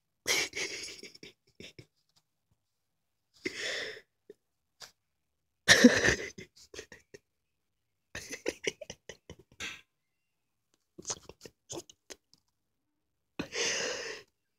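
Sleeping tabby cat breathing noisily, six rasping, snore-like breaths about two to three seconds apart, the loudest near the middle.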